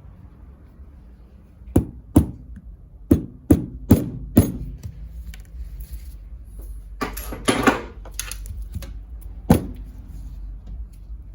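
A run of sharp knocks and clacks, six in quick succession, then a short scraping rustle and one more knock a few seconds later.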